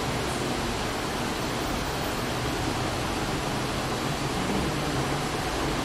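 Steady, even hiss with a low hum underneath: room tone, no distinct events.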